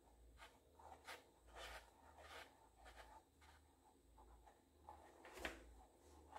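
Faint, scattered rubbing and scuffing as a foot in sheer pantyhose dangles a red high-heeled pump, the shoe slipping against the heel and nylon, with one sharper click about five and a half seconds in.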